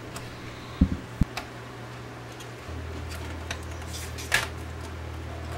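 A few knocks and clicks of plastic and metal as the cassette transport mechanism of a Nakamichi DR2 deck is worked loose by hand, with two dull knocks about a second in and a sharper click near the end. Under them a steady low hum deepens and grows louder about halfway through.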